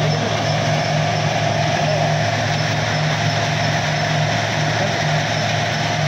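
Stone-crusher plant machinery, the crusher and its belt conveyors, running with a steady, loud mechanical drone: a low hum with a constant higher whine over it.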